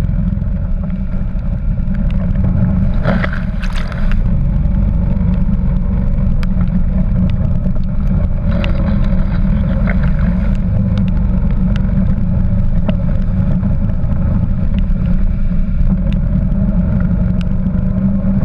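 Quad bike (ATV) engine running steadily as it rides through a flooded track, with water splashing around the wheels and sharp ticks of rain and spray hitting the camera. There is a brief louder splash about three to four seconds in.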